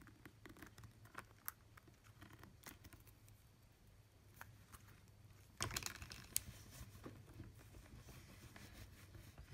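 Faint scattered clicks and light handling noises of small parts being worked by hand, with a louder rustle about halfway through and a sharp click just after it, over a low steady hum.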